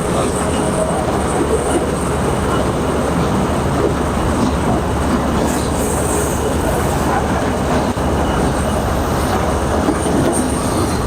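Dasmesh combine harvester running as it harvests maize: a loud, steady machine noise.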